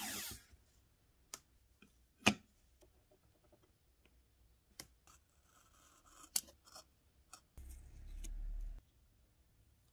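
Masking tape ripped briefly off its roll, then scattered clicks and taps as the tape is handled, pressed onto a small wooden block and marked with a pen, with a low rubbing near the end as fingers press the tape down.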